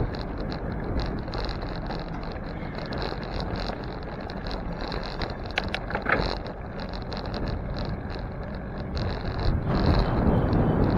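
Wind rushing over a bicycle-mounted camera's microphone, with the rumble of tyres on the road as the bike rides along. There are a few sharp clicks about six seconds in, and the wind grows louder near the end.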